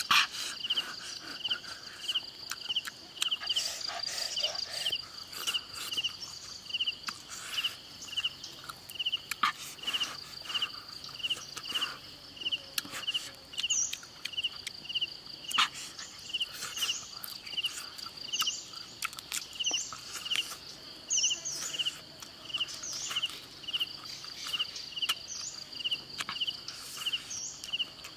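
Insects calling steadily: one repeats a short chirp at a regular pace and another keeps up a continuous high trill. Short bird chirps join in the second half, and scattered soft clicks and rustles come from hands handling food close by.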